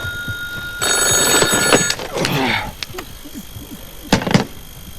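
Telephone ringing once for about a second, an incoming call. A brief voice-like sound follows, then two sharp knocks a little after four seconds in.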